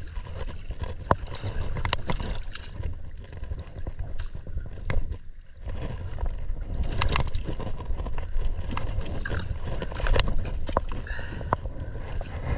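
Wind buffeting the microphone and water sloshing against a plastic sit-on kayak's hull, with scattered sharp knocks and clicks as a Spanish mackerel is brought alongside and lifted aboard on the line.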